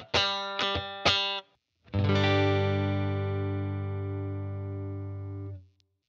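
Clean electric guitar, a PRS Silver Sky played through a Fender '55 Tweed Deluxe amp plug-in: a few quick strummed chords, then about two seconds in a single chord struck and left to ring, fading slowly until it is muted near the end.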